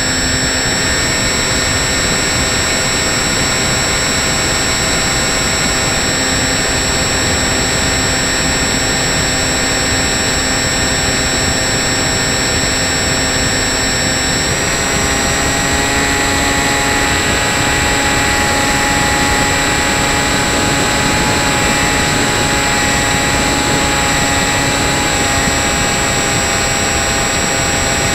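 Electric motor and propeller of a foam RC model plane at steady cruise throttle, heard from on board: a steady multi-tone whine over a hiss of rushing air. The whine shifts slightly in pitch about halfway through.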